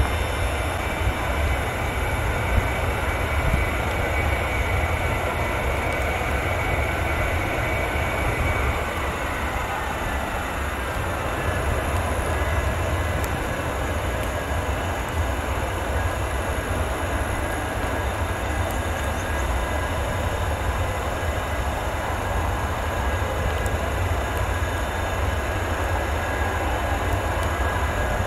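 Airbus A300 freighter's jet engines at taxi power: a steady rumble and hiss with a faint high whine that fades out about nine seconds in.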